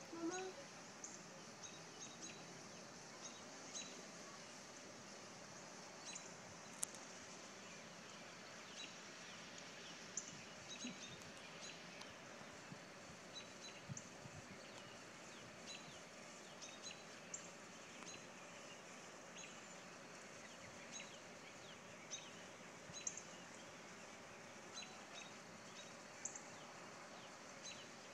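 Faint steady outdoor hiss with small birds giving scattered short, high chirps.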